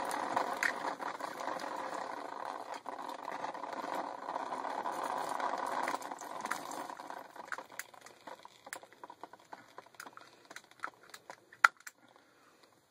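Water spattering and running out of a freshly cut polybutylene water line for about six seconds, then stopping. After that come scattered sharp clicks and ticks of the ratchet pipe cutters and the plastic pipe being handled.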